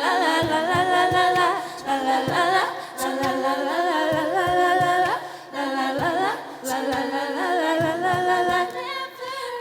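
An a cappella vocal group singing in layered harmony, with several voices held and moving against each other.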